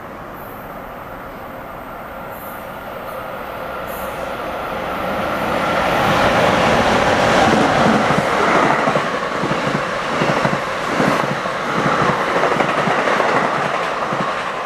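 An NJ Transit train with an ALP-46A electric locomotive and bi-level passenger cars passing at speed. It grows steadily louder as it approaches, then the locomotive and cars go by with wheels clacking over the rail joints, and the sound falls away near the end.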